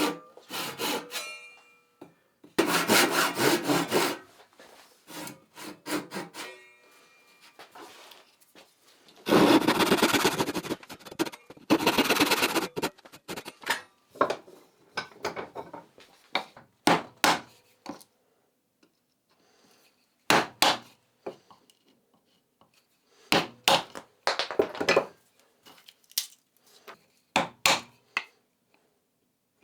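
Hand tools working pine: a handsaw cutting wood in runs of quick strokes, then short separate strokes with pauses between them.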